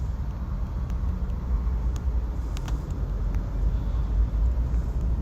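Steady low rumble, like a running car, with a few faint clicks.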